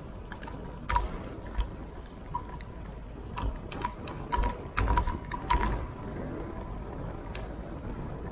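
Irregular mechanical clicks and knocks over a steady low rumble, with a faint steady tone throughout: a bicycle and its mounted camera rattling while riding.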